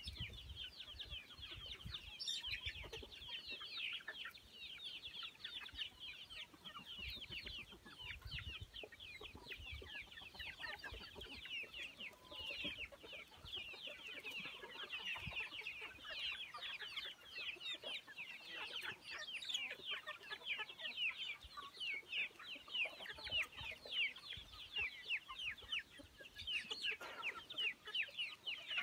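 A flock of young, half-grown chickens peeping constantly: many short, high, falling chirps overlapping without a break.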